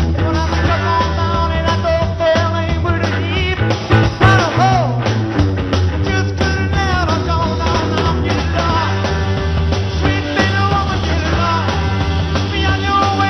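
Live rock band playing loud: electric guitar, bass and drums driving on, with a male singer's voice over them.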